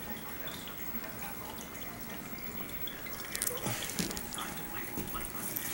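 Aquarium water trickling and dripping steadily, the kind of sound a filter's outflow makes as it falls into the tank. From about halfway through, a few sharp clicks and knocks of handling sound over it.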